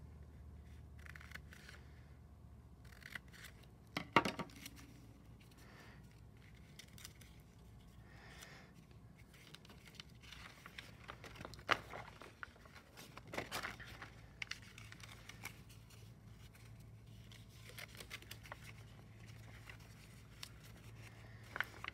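Scissors cutting small slits into folded heavy cartridge paper: a few sharp snips, the loudest about four seconds in, with the paper rustling and creasing as it is folded and handled.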